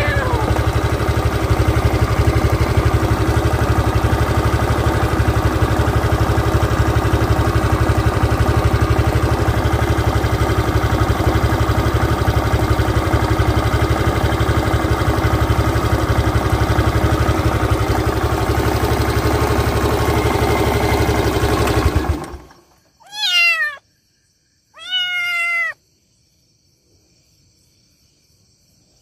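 A steady engine drone runs and then cuts off abruptly, followed by a kitten meowing twice, each meow falling in pitch.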